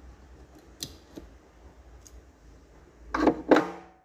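A few light clicks, then two sharp knocks with a brief metallic ring near the end: a small diecast toy car and tools being handled and set down on a cutting mat.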